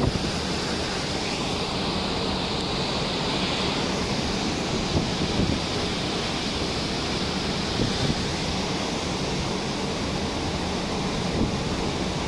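Rough sea rushing and breaking along the side of a cruise ship, mixed with wind blowing over the microphone: a steady rushing noise with a few small swells in loudness.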